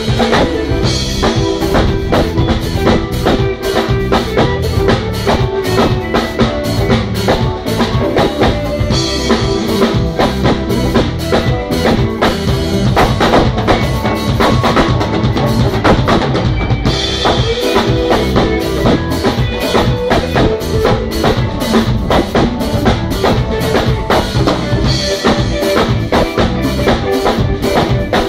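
Live band playing an instrumental groove: a drum kit keeps a steady beat with kick, snare and rimshots under sustained keyboard chords. The keyboardist's split keyboard also carries the bass line, as no bass player is present.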